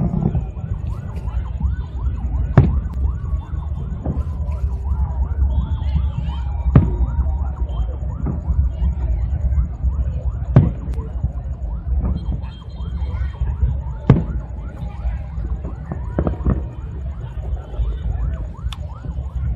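Aerial fireworks display: sharp bangs every two to four seconds over a constant low rumble, with many short whistling glides and a long slowly falling whistle in the middle.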